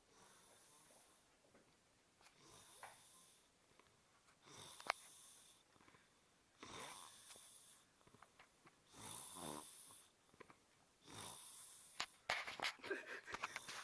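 A man snoring in his sleep: a noisy breath about every two seconds, some of them with a rattling snore. Short clicks and rustling come near the end.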